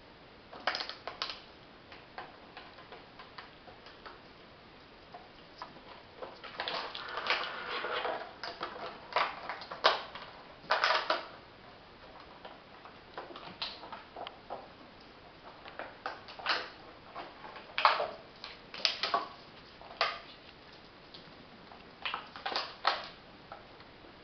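Puppies' claws and paws clicking and scrabbling on a hardwood floor as they romp: irregular short taps, some single and some in quick clusters.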